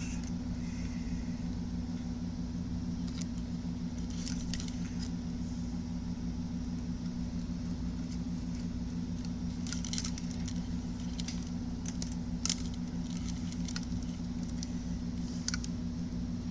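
Steady low hum under scattered small clicks and rustles of wires and small parts being handled on a workbench.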